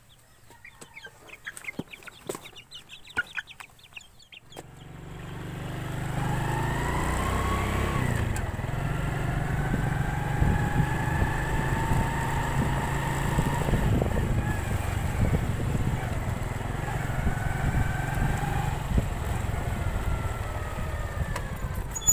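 Young chickens peeping with cardboard rustling for the first four seconds or so. Then a motorcycle engine runs steadily while riding along a road, with wind noise and its pitch rising and falling.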